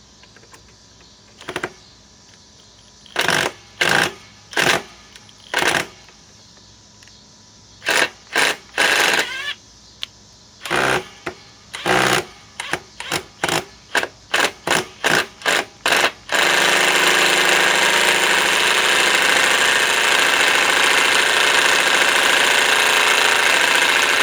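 Cordless impact driver driving a long Phillips drywall screw. It goes in a dozen or so short trigger bursts as the trigger is feathered, then hammers continuously for about eight seconds near the end.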